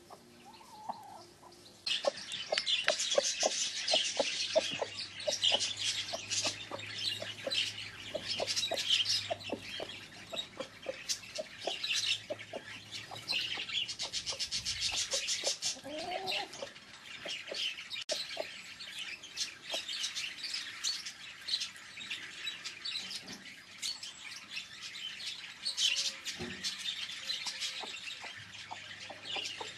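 Backyard hens clucking and calling, over a dense, busy high chirping that sets in about two seconds in.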